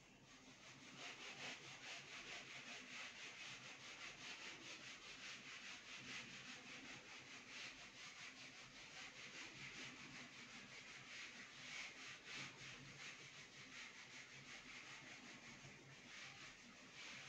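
Faint rubbing of a handheld eraser wiping marker writing off a whiteboard, in quick back-and-forth strokes that begin about a second in.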